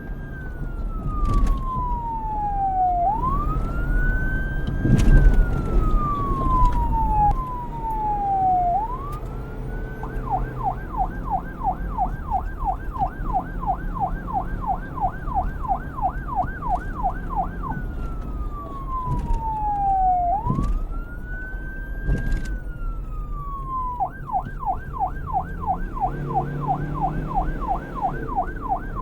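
Electronic police siren switching between a slow wail, each sweep rising quickly and falling over a few seconds, and a fast yelp of about three warbles a second. It changes to the yelp about a third of the way in, back to the wail, and to the yelp again near the end, over a low rumble.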